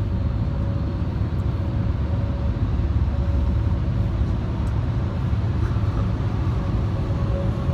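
Steady low road rumble inside a moving car's cabin: engine and tyre noise at road speed, with a faint steady hum.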